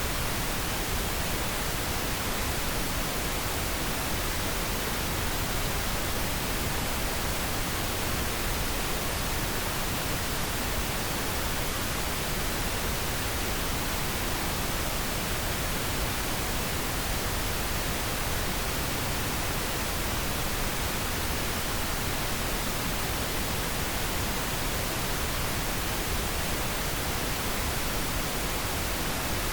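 Pink noise: a steady, even hiss spread across all pitches, with no change in level.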